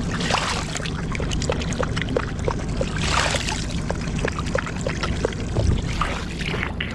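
A hand scooping and splashing river water over a boat's side, with water pouring and dripping from the cupped hand and a dog lapping from it: many quick wet clicks, with a bigger splash about three seconds in.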